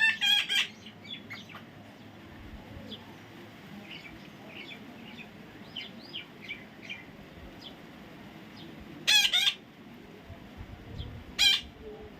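Parrot calling: loud squawks at the start, then two more about nine and eleven and a half seconds in, with soft short chirps in between.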